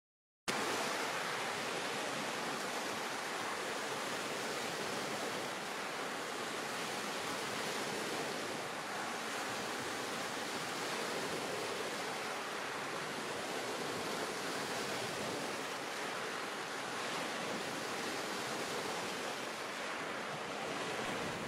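Shallow water washing steadily over pebbles at the shore, a gentle surf sound, starting abruptly about half a second in.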